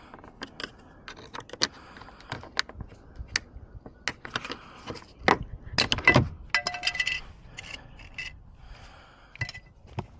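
Clicks, rattles and scrapes of hand tools and small parts being handled while a car's front door trim panel is taken off, loudest in a cluster around the middle, with a brief ringing clink just after.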